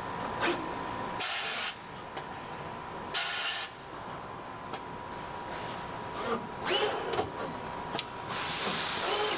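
Autoloader of a Citizen Miyano GN3200W CNC lathe at work, its pneumatics giving short sharp hisses of air: one about a second in, one around three seconds, and a longer one near the end. In between are clicks and brief rising and falling whirs of the loader moving, over a steady machine hum with a faint thin high tone.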